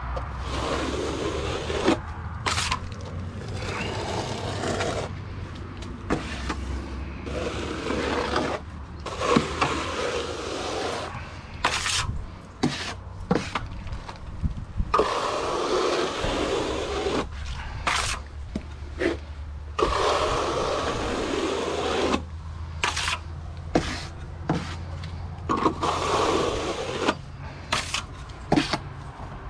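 Steel trowel scraping base coat over insulation boards in repeated strokes of a second or two each, with occasional sharp knocks between strokes.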